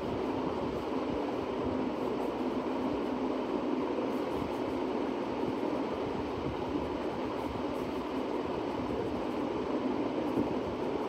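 Steady rumbling background noise, even throughout, with no distinct events.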